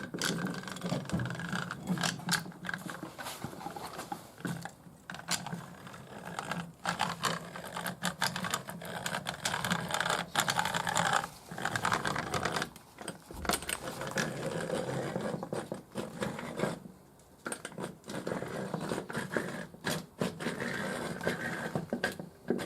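Workshop handling noise: a rapid, irregular run of clicks, knocks and scrapes of tools and metal parts being worked, with a few short pauses.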